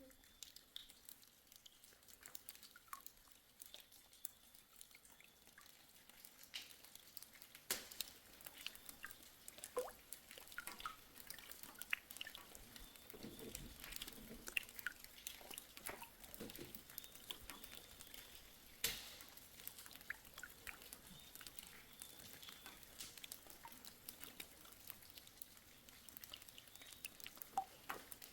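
Faint, scattered small clicks and ticks at an irregular pace, with a few sharper taps, in an otherwise quiet space.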